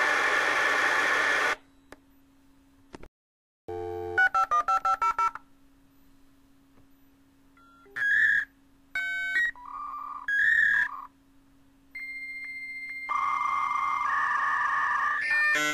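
Dial-up modem connecting to a phone line. A hiss cuts off about a second and a half in, then a click and a quick run of about eight touch-tone dialing beeps. These are followed by the handshake: short paired beeps, one steady high tone, and from about thirteen seconds a steady hiss with shifting tones.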